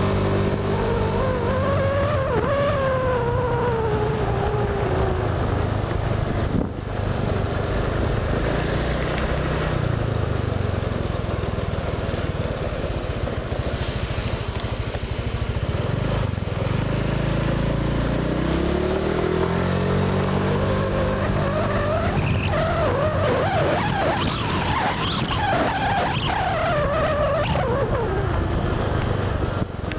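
Honda Vario 125 PGM-FI scooter's single-cylinder engine running under way. Its note rises and falls as the throttle is opened and eased off: once in the first few seconds, and again from past the middle to near the end. A new ignition coil and spark plug are fitted, which the owner reckons has cured the engine's 'snore' sound.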